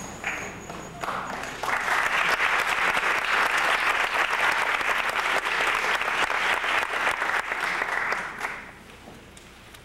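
Concert audience applauding: the clapping swells about a second in, holds steady, and dies away near the end.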